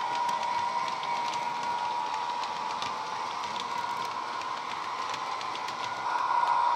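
Heljan OO gauge Class 86 model locomotive's Legomanbiffo DCC sound decoder playing a steady electric-locomotive whine through its speaker, with light clicking from the model coaches' wheels on the track. The whine grows louder about six seconds in.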